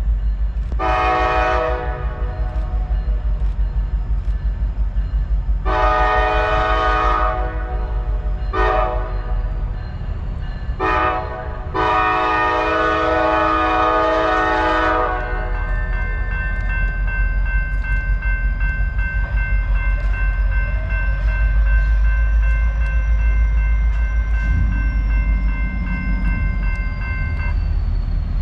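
Diesel locomotive's multi-chime air horn blowing long, long, short, long, the grade-crossing signal, over the engine's low rumble. The last blast is the longest; after it the engine keeps running with a faint steady whine.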